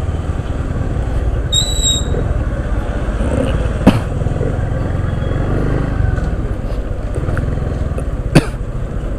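Motorcycle riding on the road: a steady low rumble of engine and wind on the microphone. Two sharp clicks, about 4 and 8.5 seconds in, are the loudest sounds, with a brief high whistle about 1.5 seconds in.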